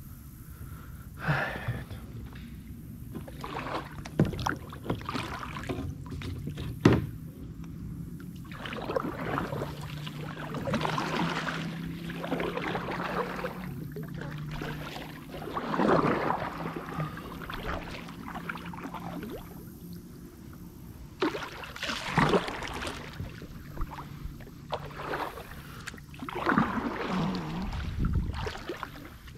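Kayak paddling: a double-bladed paddle dipping and pulling through pond water in irregular strokes, with splashes and drips. A few sharp knocks stand out, loudest at about four and seven seconds in.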